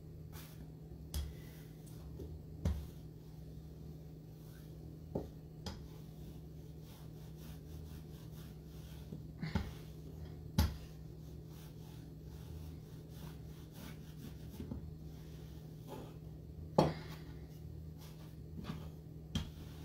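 Wooden rolling pin rolling out dough on a floured wooden board, with soft rubbing and scattered knocks as the pin and dough are set down and flipped; the sharpest knocks come about ten and seventeen seconds in. A steady low hum runs underneath.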